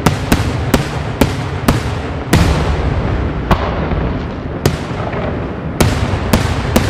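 Daytime aerial fireworks: a rapid series of sharp bangs from shells bursting in the sky, about two a second, over a continuous low rumble. The bangs thin out to about one a second in the middle, then come quickly again near the end.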